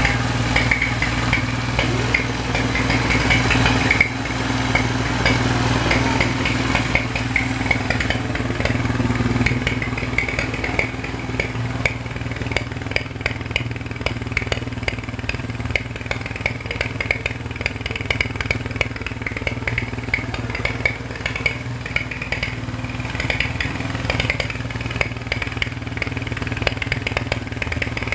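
CB 200cc motorcycle engine idling steadily, slightly livelier over the first several seconds, then settling.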